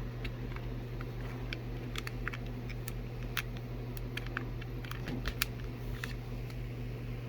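Electric fan motors humming steadily, with scattered light clicks and taps throughout.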